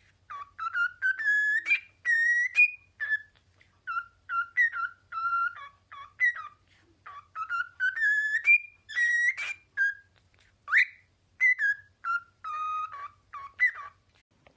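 A pet parrot whistling a long string of short, clear notes in quick phrases, some held, some sliding up or down in pitch, with brief gaps between them.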